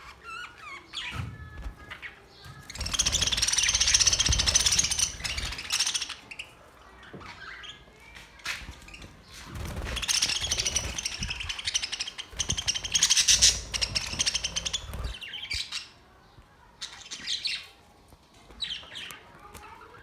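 A flock of budgerigars chattering and squawking, in two long bursts of rapid, dense calls with shorter single calls between them.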